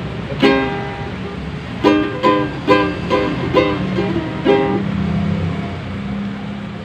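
Ukulele strummed chord by chord, about seven separate strokes each ringing out, then letting the last chord ring with no new strokes for the final couple of seconds.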